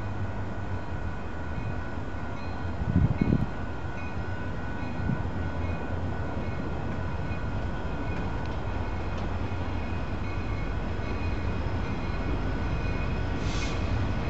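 Diesel-hauled freight train running, a steady low rumble with a steady high whine on top, growing slightly louder. A brief low thump about three seconds in.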